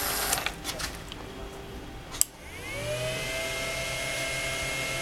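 The small electric motor of a homemade dish-washing machine model stops, a few light clicks follow, then a sharp click about two seconds in as it is switched back on; the motor spins up with a rising whine and settles into a steady running hum.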